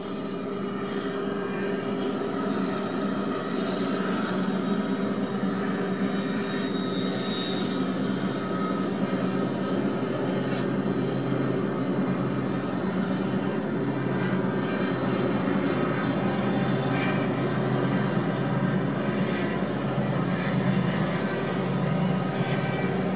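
Several BNSF diesel freight locomotives running past, a steady low engine drone that grows louder over the first several seconds and then holds.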